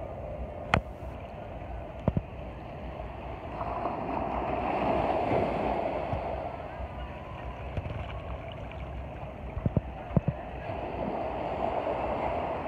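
Surf washing in and out as a swelling rush of noise, with a few sharp pops: one about a second in, another near two seconds, and two close together near ten seconds.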